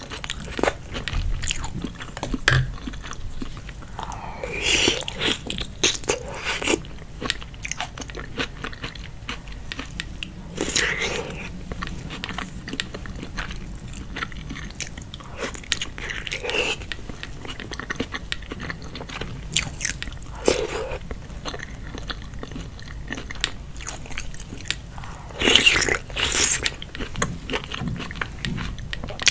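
Close-miked eating of seafood in sauce: wet chewing and biting with many small clicks, and louder wet mouth noises every few seconds.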